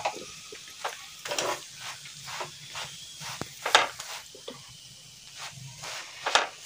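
Metal spatula scraping and pressing a wheat flatbread on a hot iron tawa, with light oil sizzling underneath. Irregular strokes about once a second, the loudest nearly four seconds in and another just after six seconds.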